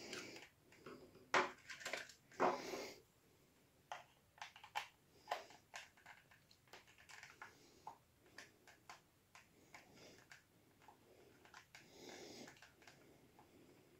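Faint, scattered clicks and taps of a plastic model train body and a small screwdriver being handled and prised at, as a stubborn body shell is worked loose to fit a DCC chip.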